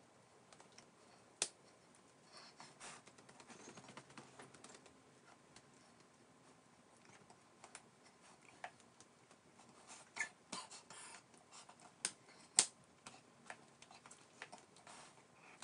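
Scattered sharp clicks and taps against quiet room tone, the loudest about a second and a half in and a cluster of them from about ten to thirteen seconds in.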